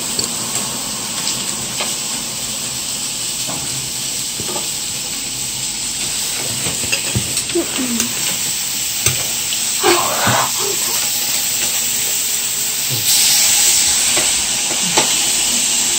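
Steady sizzling hiss of meat frying on a hot griddle plate, with a few faint clinks.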